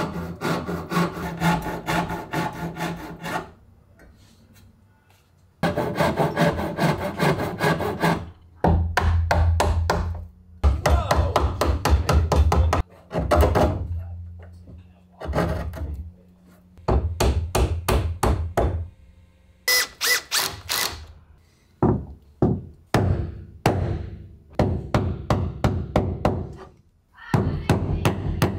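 Hand chisel cutting hinge mortises in the hardwood edge of a door: runs of rapid taps and scraping paring strokes, broken by short pauses.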